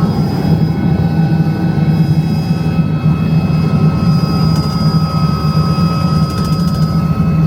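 Helicopter running at full power, a steady loud drone with a constant high-pitched whine over it.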